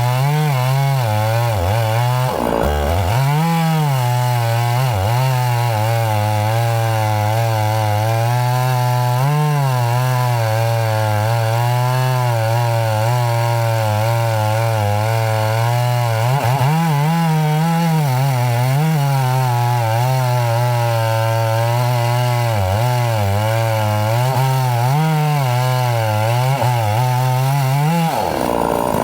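Two-stroke chainsaw cutting through pine, its engine note wavering as the chain loads up in the wood, with a brief bog-down about two and a half seconds in. Near the end the note changes abruptly as the saw comes free of the cut.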